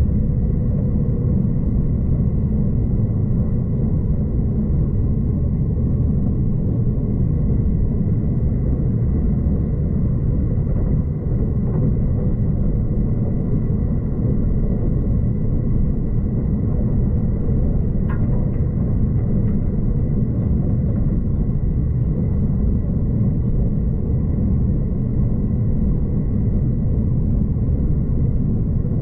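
Steady low rumble of a V/Line passenger train running along the track, heard from inside the carriage, with a faint steady high whine over it and a single brief tick a little past the middle.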